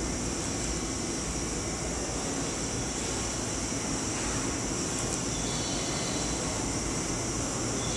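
Steady hum and hiss of a stationary electric train's on-board equipment, such as its air-conditioning fans and auxiliary power, running while the train stands at the platform.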